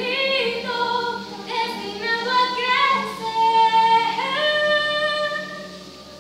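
Young female voices singing long held notes that slide from pitch to pitch, with little or no accompaniment; the singing fades away near the end.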